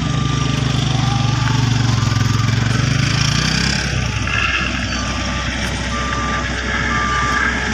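Road roller reversing alarm beeping steadily about once a second over the low drone of a roller's diesel engine. The drone drops away about four seconds in.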